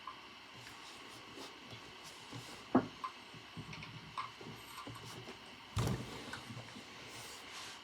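Sparse, irregular clicks and light knocks of keys and objects handled at a desk, with a sharp knock about three seconds in and a louder clatter a little before six seconds, over a faint steady hiss.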